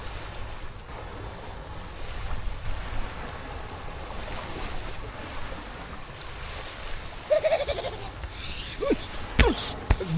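Outdoor wind and water noise: a steady rush, with a couple of sharp knocks near the end.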